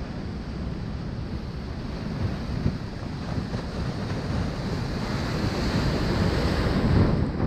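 Ocean surf washing on the beach with wind buffeting the microphone, growing louder over the last few seconds as a wave comes in.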